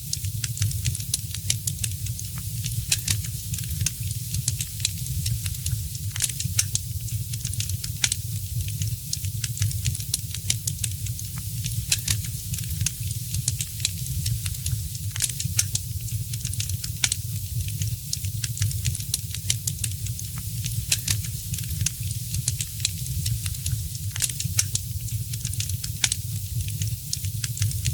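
Wood fire crackling, with many sharp, irregular pops and snaps over a steady low rumble of flame.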